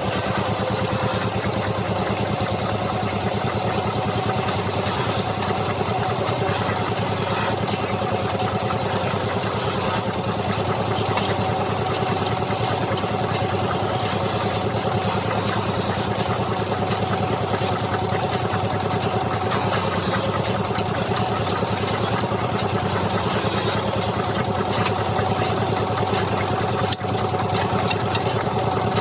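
Wood lathe's electric motor running steadily with a constant hum, dipping briefly in level near the end.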